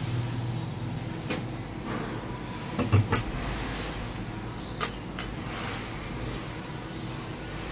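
Metal latch on a homemade plywood incubator door being worked by hand and the door opened: a few sharp clicks and knocks, the loudest cluster about three seconds in, over a steady low hum.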